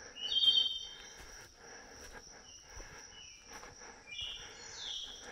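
Forest ambience: a steady high insect drone, with a bird's bright chirping call about half a second in, the loudest sound, and more chirps near the end. Footsteps on a leaf-littered trail sound underneath, about two a second.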